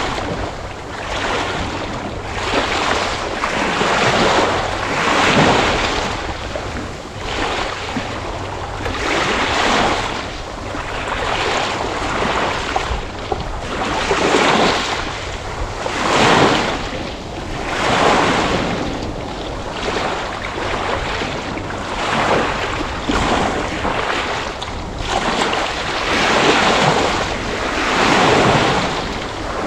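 Sea waves breaking and washing on a shore, the surf swelling and fading about every two seconds.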